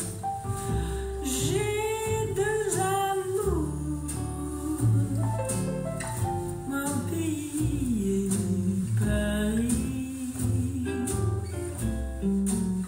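A song with singing and instrumental backing, played through Hans G Henel Summit Typ250 loudspeakers driven by a Sansui 310 amplifier with the loudness switch off and the tone controls flat.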